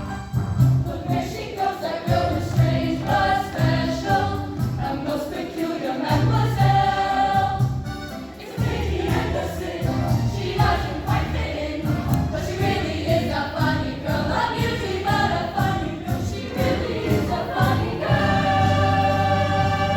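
A high school choir singing a pop medley with accompaniment, holding a sustained chord near the end.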